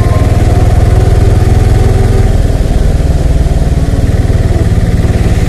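Engine of the vehicle being driven, heard from on board as a loud, steady, pulsing low rumble.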